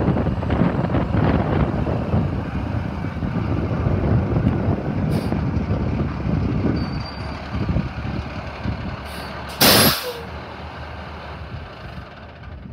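Tandem-axle diesel dump truck's engine running as the truck rolls up and stops, then one short, loud hiss of air from its air brakes about ten seconds in, after which the engine runs quieter.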